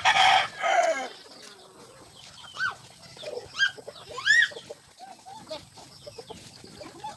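Chickens clucking, with three short calls that rise and fall in pitch a few seconds in, each louder than the last. A short loud rustling burst fills the first second.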